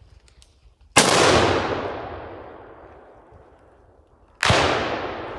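Two rifle shots from a Sauer 303 in .300 Winchester Magnum, one about a second in and one near the end, fired at wild boar. Each is a sharp crack whose echo rolls away through the woods over a couple of seconds.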